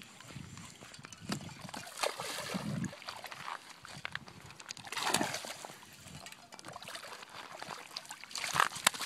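Water splashing and sloshing in the shallows as a hooked smallmouth bass is pulled in to a gravel shore, in uneven surges, with a few sharp clicks near the end.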